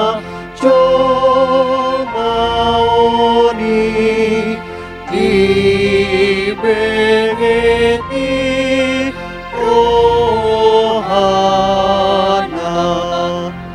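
A woman and a man singing a slow hymn in Batak Toba together into microphones, in long held notes with short breaks between phrases.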